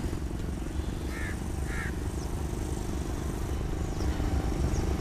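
AGE-30 diesel-electric locomotive's engine rumbling steadily as it approaches at low speed, with two short chirps a little after a second in.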